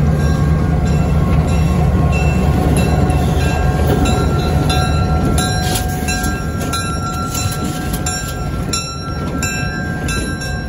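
Diesel-electric locomotive passing close by at slow speed with passenger coaches in tow: its engine drones steadily, then eases off a little about halfway through as it goes by. Sharp clicks of the wheels over the rail joints follow as the coaches pass.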